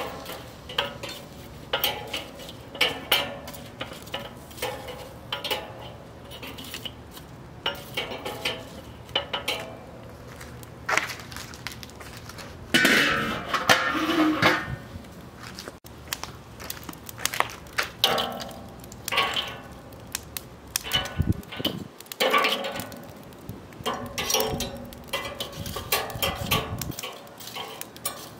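A metal tool poking and stirring lump hardwood charcoal through the steel cooking grate of a Weber kettle grill: irregular clinks and scrapes of metal on the grate, and charcoal lumps knocking together. About thirteen seconds in comes a longer, louder scrape.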